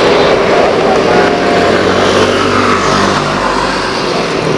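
Airbus A330-900neo's Rolls-Royce Trent 7000 turbofans running at low thrust as the airliner taxis and swings round to line up on the runway. A steady, loud, hissing engine noise with a low hum underneath.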